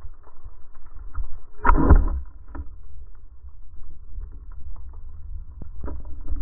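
Wooden speargun firing underwater: one loud clack about two seconds in, over a steady low underwater rumble and scattered faint clicks.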